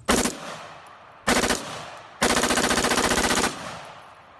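Electronic machine-gun rattle from a toy assault rifle, in three bursts: a brief one, a second about a second later, and a longer rattle of over a second.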